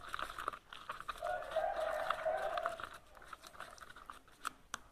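A spoon stirring and scraping a thin, wet flour-and-spice batter in a plate, with light clicks and taps of the spoon against the plate, thinning out after about three seconds. A faint drawn-out sound runs in the background for about a second and a half.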